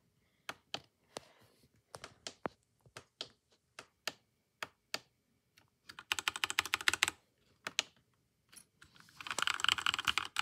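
Keystrokes on a Langtu LT84 mechanical keyboard: single key presses, one to three a second, then a quick burst of rapid typing about six seconds in and another near the end.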